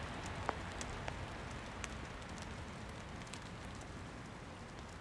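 Outdoor ambience: a steady low rumble with a light haze over it, and scattered faint ticks and clicks that come at uneven intervals.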